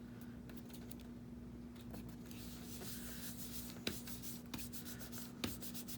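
Paper being handled and rubbed on a craft table: soft rustling and scraping that picks up about two seconds in, with a few light taps, over a faint steady hum.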